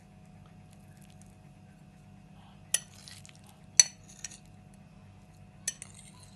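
Metal fork clinking against a ceramic plate as it cuts through a piece of soft semolina cake: five short sharp clinks over about three seconds, the loudest a little past the middle.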